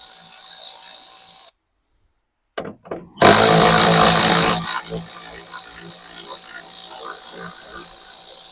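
Cordless power driver running as it backs out the truck's headlight mounting bolts: a run that stops about a second and a half in, a couple of clicks, then a second, louder run that fades over several seconds.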